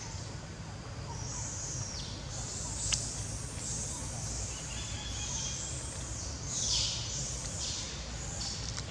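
Outdoor forest ambience: a high hissing drone that swells and fades in waves every second or two over a low rumble, with one sharp click about three seconds in.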